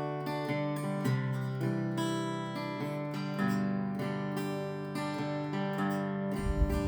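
Acoustic guitar music, plucked and strummed notes with a steady melody. A low rumble comes in near the end.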